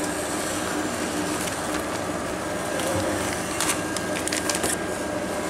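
FRM-980 continuous band sealer with date printer running steadily with a hum. About three and a half seconds in, a clear plastic bag crinkles briefly as it is handled.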